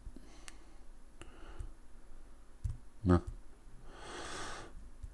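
Quiet room with a few faint clicks from fingertips tapping a smartphone, a brief voiced sound from the man about three seconds in, and a short breathy noise a second after it.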